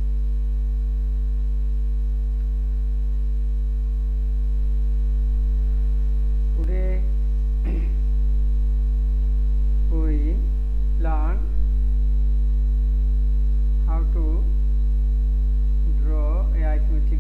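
Loud, steady electrical mains hum: a low drone with a stack of steady overtones above it, constant throughout.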